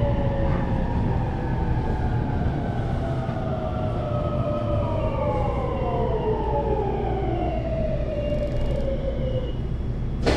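JR 223 series electric train's inverter and traction motors whining, several tones falling slowly in pitch as the train slows under braking, over a steady rumble of the wheels on the rails. The whine fades out near the end.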